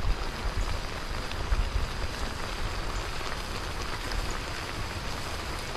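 Kaldereta stew sizzling and simmering in a large steel wok over a wood fire: a steady hiss with scattered small pops, and a low rumble underneath.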